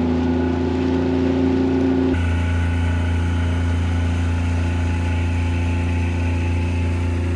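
Outboard motor on a Carolina skiff running at a steady speed, driving the boat across the lake with a constant engine note. The tone shifts abruptly about two seconds in, then stays steady.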